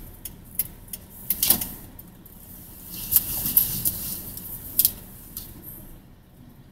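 Scattered clicks and knocks with clothing rustle and phone handling noise inside a car cabin as the driver twists round in her seat, with a longer rustle about three seconds in. A faint car rumble runs underneath.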